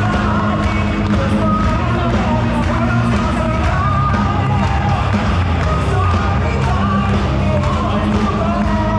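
Music with a singing voice over a heavy, steady bass line.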